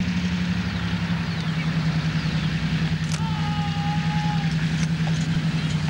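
Diesel locomotive engine running with a steady low drone. About three seconds in, a higher steady whine joins it for a second and a half.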